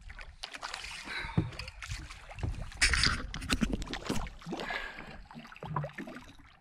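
A freshly caught striped bass being handled aboard a boat, fighting hard: a run of irregular knocks, thumps and splashy rustling, loudest about halfway through.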